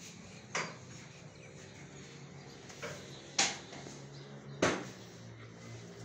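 Three sharp knocks, about half a second, three and a half and four and a half seconds in, the last two the loudest, over a low steady hum.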